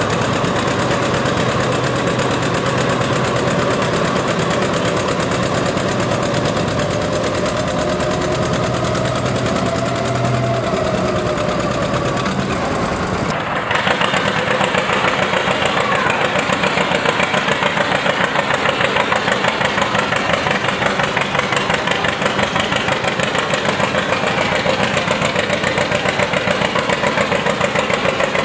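John Deere two-cylinder tractor engines working under load while pulling a concrete-block sled. About halfway in the sound changes abruptly to a second tractor, whose engine runs with an even, rapid pulsing beat.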